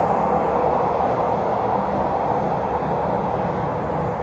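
Diesel railcar express train running past, a steady train noise that slowly grows fainter.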